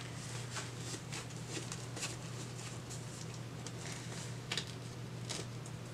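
Disposable diaper rustling and crinkling in the hands as it is put on, with a few short crackles, over a steady low hum.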